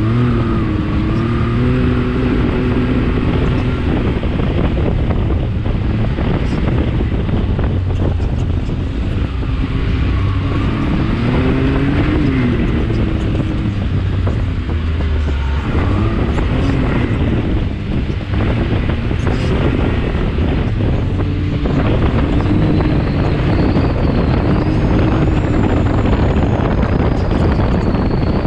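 Can-Am X3 XRC Turbo side-by-side's turbocharged three-cylinder engine running under load, its pitch rising and falling as the throttle changes, with heavy wind noise on the microphone. A faint high whine comes in after about twenty seconds.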